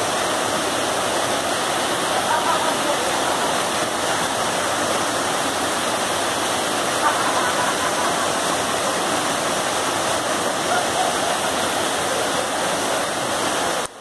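Waterfall pouring over rock at close range: a steady, loud rush of falling water. It drops off suddenly at the very end.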